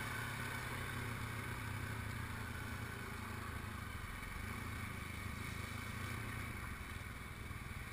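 ATV engine running steadily as the quad rides along a muddy dirt track, heard on board the machine.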